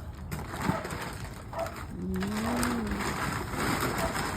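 Dry chicken feed being poured out into a container, a steady crunching rattle. A brief low voice-like hum sounds about two seconds in.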